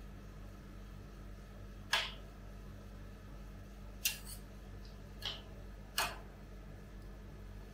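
Metal spatulas scraping and tapping on a sheet of frozen banana ice cream on a steel cold plate: four short, sharp scrapes, the first about two seconds in and three more in the second half, over a steady low hum.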